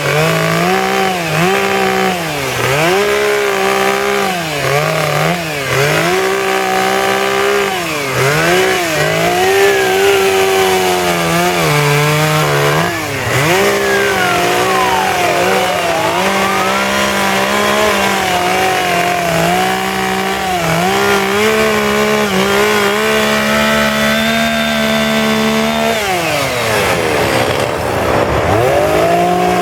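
Two-stroke chainsaw carving wood, its engine speed rising and dipping again and again as the throttle is worked. Near the end it drops away toward idle, then revs back up.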